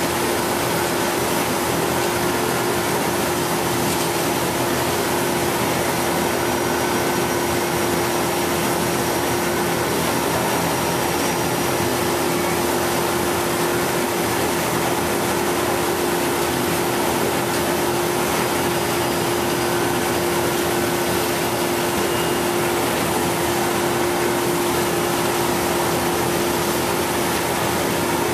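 An engine or motor running steadily: a constant hum under an even mechanical noise, with no change in speed.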